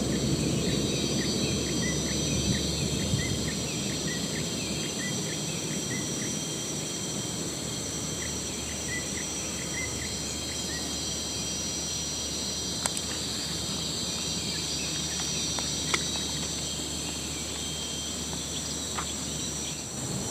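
Steady, high-pitched drone of insects in swamp grassland, with a run of short chirps repeating about twice a second through the first half and a few faint clicks later on.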